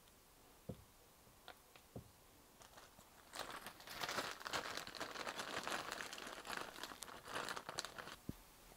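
Crinkling, crackly rustling of something like wrapping being handled and crumpled, starting about three seconds in and lasting about five seconds, after a few light clicks in the first two seconds.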